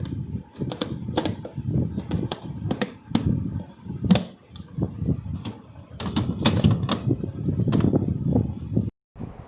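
Plastic food containers being handled and set down on a fridge shelf: irregular clicks and knocks with rustling handling noise, breaking off abruptly near the end.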